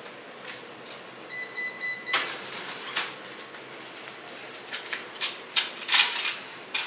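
An electronic beep lasting just under a second, cut off by a sharp click, followed by a run of short, irregular clicks and clatters.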